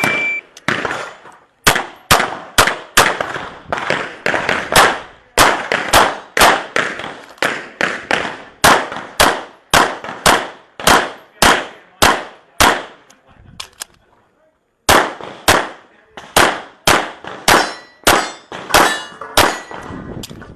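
A shot timer's short start beep, then a handgun fired in quick strings of shots, about two a second, as a practical-shooting stage is shot. The firing stops for about two seconds past the middle, then resumes.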